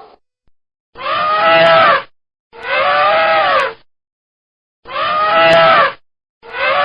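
Elephant trumpeting: four pitched calls of about a second each, every one rising then falling in pitch, with short silences between; the same call repeated.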